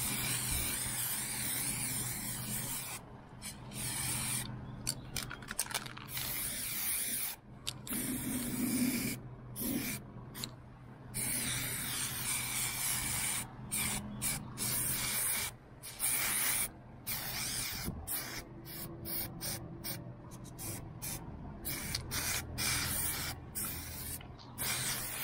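Aerosol spray can of primer hissing as it coats a saildrive leg, sprayed in many bursts with short pauses between them, the pauses more frequent in the second half.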